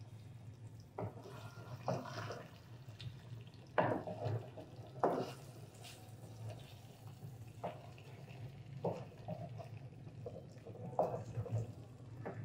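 Wooden spatula stirring thick, wet curry in a pan: irregular knocks and scrapes of the spatula against the pan, with soft squelching of the gravy, over a steady low hum.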